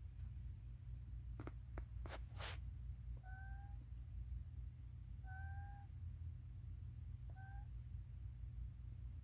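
Sleeping baby raccoon snoring. A couple of short, breathy puffs are followed by three short whistling squeaks a couple of seconds apart, each rising slightly in pitch.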